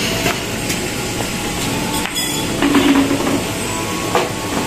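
Steady motor-vehicle traffic noise from a road, with scattered clicks and a short louder sound about two and a half seconds in.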